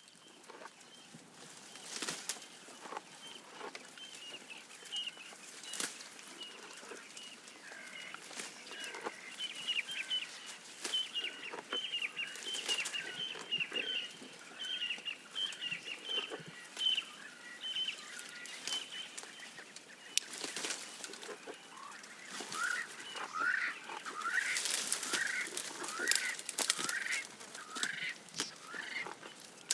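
Birds calling in runs of quick repeated chirps, with a second set of lower, swooping calls near the end. Scattered sharp clicks and crackles run through, from a giraffe browsing and chewing leaves.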